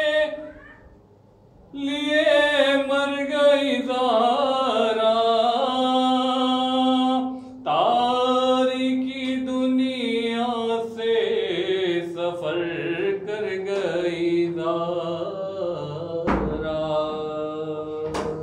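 A man chanting an Urdu lament (noha) without accompaniment, holding long wavering notes with melismatic turns and few clear words, starting after a short pause. Two sharp knocks near the end.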